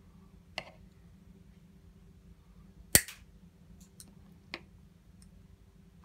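Side cutters snipping one coil off a small steel spring from an auger quick-connect button: a single sharp snap about three seconds in, with a few lighter clicks of the jaws and spring before and after. The spring is being shortened so the stiff button presses more easily.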